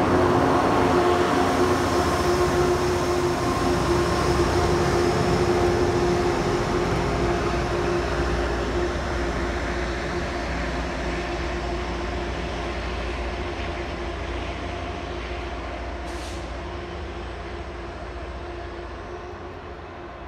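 Diesel push-pull commuter train pulling out past the platform, its rear locomotive pushing: a steady engine hum over wheel and rail rumble that fades as the train moves away.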